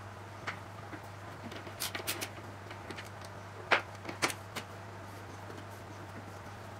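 Scattered sharp metal clicks and clinks from a ratchet wrench and socket on lag screws, the loudest two a little past halfway, over a steady low hum.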